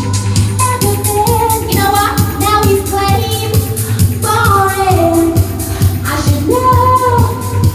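A woman singing a pop song over a backing track with a steady, even beat.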